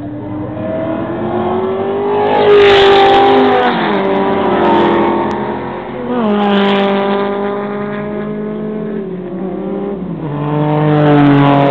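Race cars passing one after another at speed on a circuit straight, among them a blue Ford Capri race car and then a Porsche 911. Each engine note rises as the car nears and drops in pitch as it goes by, about four and six seconds in, and another engine builds loud near the end as the Porsche comes on.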